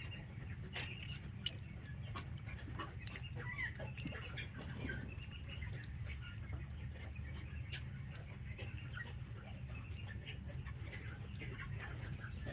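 Desi chickens calling: many short, overlapping chirps and clucks over a steady low hum.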